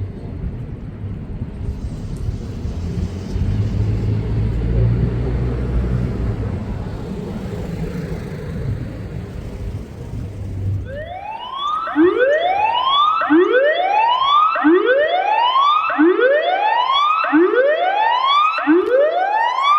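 Electronic tsunami warning sirens sounding a whoop alert: a series of loud rising whoops, one about every second and a bit, starting about eleven seconds in. Before the whoops there is only a low rumble.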